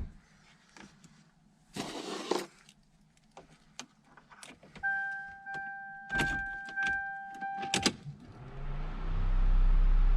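Keys rattling and clicking, then a steady electronic warning tone from the car's dash for about three seconds. Near the end the 1993 Toyota Corolla's 1.8-litre engine starts and settles into a steady idle.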